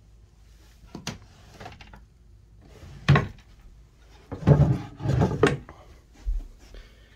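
Wooden dresser drawers being handled and pulled open: a few light knocks, a sharp knock about three seconds in, then a louder sliding scrape of a drawer running out.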